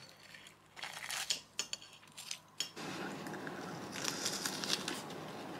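Metal chopsticks clicking and scraping against a ceramic plate as pieces of fried chicken cutlet are picked up, followed by eating sounds as a piece of the crisp cutlet is bitten and chewed.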